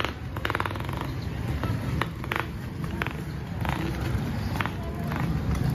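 Roadside traffic: a motor vehicle engine running with a steady low rumble that grows louder near the end, with a short burst of fast ticking early on and scattered clicks and knocks.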